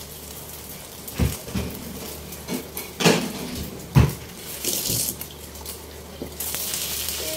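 Kitchenware being handled: a bowl and utensils knocked and set down about five times in a few seconds. Near the end a steady hiss comes in and holds.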